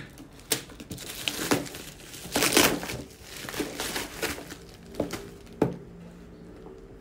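Plastic bubble mailer crinkling and tearing as it is ripped open and pulled off a cardboard box, loudest about two and a half seconds in. Two short knocks follow near the end as the box is handled and set down.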